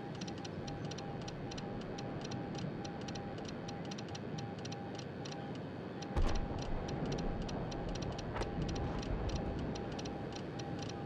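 Morse code: a steady beeping tone keyed on and off in dots and dashes, over a fast, even ticking. About six seconds in there is a thump, followed by a low rumble for a few seconds.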